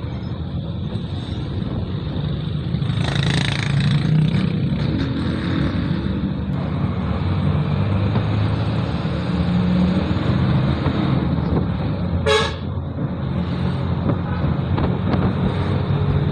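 A vehicle's engine running steadily as it drives along a street, with road traffic around it and a brief horn toot about twelve seconds in.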